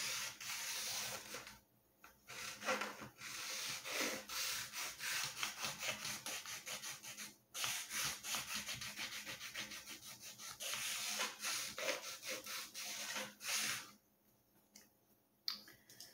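Rapid back-and-forth rubbing strokes of a hand tool along the joint between a model rocket's wooden fin and its body tube, with short pauses about 2 and 7.5 seconds in, stopping about 14 seconds in.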